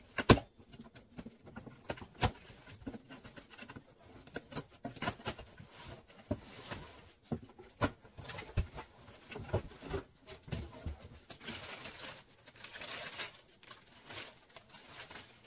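A cardboard shipping box being opened by hand: irregular knocks, scrapes and cardboard flaps being handled, with a sharp loud knock just after the start. Near the end there is a longer stretch of rustling as packing paper is pulled about.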